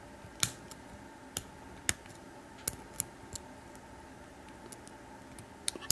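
Lock pick clicking against the pin stacks inside a Stanley 828145 shrouded steel padlock during single pin picking: a handful of sharp, irregular metal clicks spaced about half a second to a second apart, as the last binding pin is hunted for.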